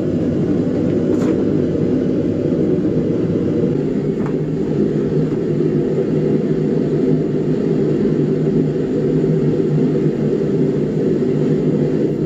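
Forge burner running with a steady, low rushing noise while the tomahawk head is heated for quenching, with a couple of faint taps about one and four seconds in.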